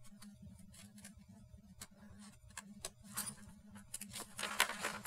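Pages of a paper instruction booklet being turned and handled: soft papery rustles and crinkles that come in clusters, about midway and again near the end, over a steady low hum.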